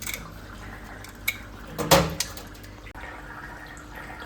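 Water running from a tap into a sink, with a few light clicks and one louder knock of dishes or utensils about two seconds in.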